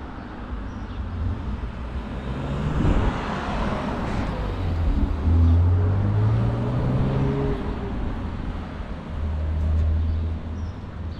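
Street traffic: cars passing, with a swell of passing noise about three seconds in and an engine's low hum rising slightly in pitch after it.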